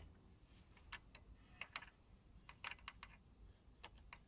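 Faint, irregular light clicks, some in quick little clusters, of metal tweezers touching the metal looper and thread guides inside an overlocker as a looper is threaded.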